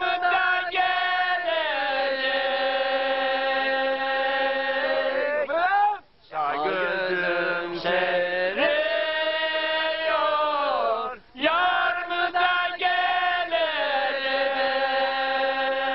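A man singing solo and unaccompanied in long, held, slightly wavering notes. Two short breaths split the phrases, about six and about eleven seconds in.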